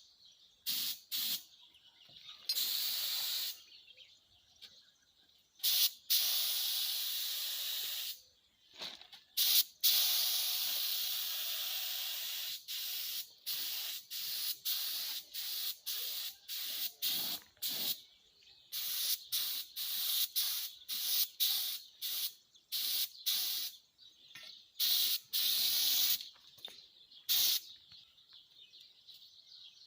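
Stick (arc) welding on thin steel square tube: the arc sizzling in many short stop-start bursts, with one longer run of about two and a half seconds near ten seconds in.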